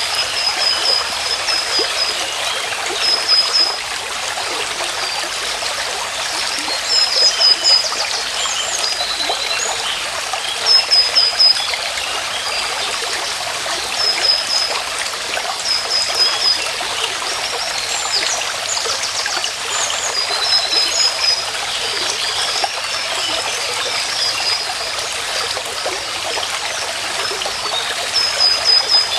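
A stream of water trickling and running steadily. Over it, a bird gives a short, high, rapid series of notes, repeated every few seconds.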